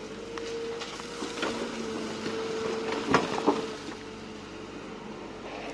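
Kobelco EC220E excavator's diesel engine running at a steady pitch while it works, with a series of sharp knocks and clanks; the loudest two come a little after three seconds in.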